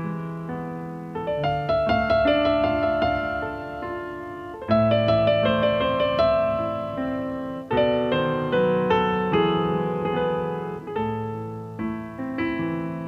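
Background piano music: slow chords and notes, each struck and left to fade.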